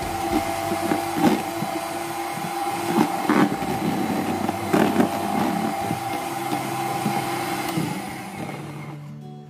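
Electric hand mixer running as its beaters whip egg whites into meringue in a plastic tub. The beaters knock against the tub now and then. The motor winds down and stops near the end.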